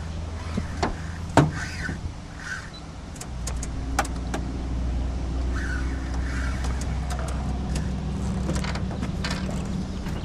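Boat motor running at low speed, a steady low drone that gets louder about three seconds in, with scattered knocks and clicks, the loudest about a second and a half in.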